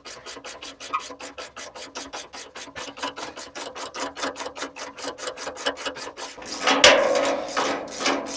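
Socket ratchet clicking rapidly, about seven clicks a second, as it winds a nut along M12 threaded bar to draw in a chassis bush. Near the end comes a sharp crack and then a louder grinding rasp from the nut on the threaded bar, which the mechanic thinks was the thread being stripped.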